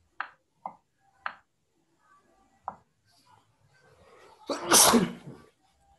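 A person sneezes once, loudly, about four and a half seconds in. Before it come a few short soft taps.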